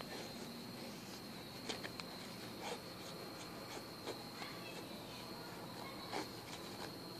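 Small knife blade shaving a thin wooden stick, short scraping strokes a second or two apart as curls are cut for a feather stick. A steady high insect trill runs underneath.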